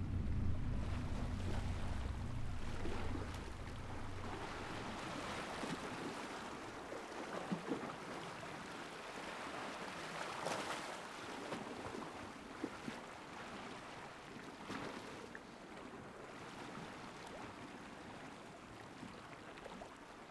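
Sea waves washing against a rocky shore, with some wind, and a few small splashes. A low, steady drone fades out over the first few seconds.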